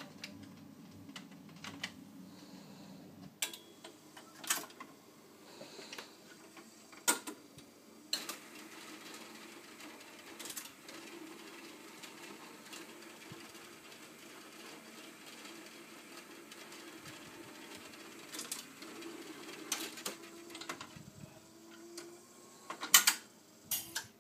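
Rock-Ola jukebox record changer at work: the motor runs steadily with scattered clicks and clunks as the mechanism picks a 7-inch record from the vertical magazine and carries it to the turntable. Two loud clunks come near the end as the record is set in place. The last of the previous song cuts off about three seconds in.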